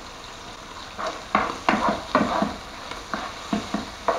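Diced bacon sizzling steadily in a large frying pan. From about a second in, a utensil stirs it in a run of about eight quick scrapes and knocks against the pan.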